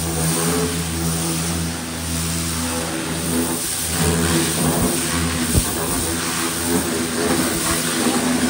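Pressure washer spraying the bare sheet-metal floor pan of a stripped car body: a steady motor hum under the hiss of the water jet on the metal, swelling a little as the wand moves.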